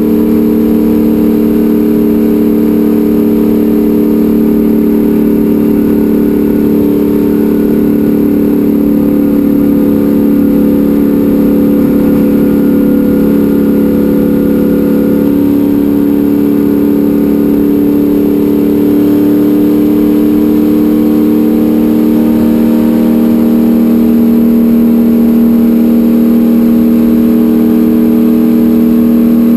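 Racecar engine heard from inside the cockpit, running hard and steady at high revs while lapping a banked oval, its pitch sagging slightly through the middle and climbing again near the end.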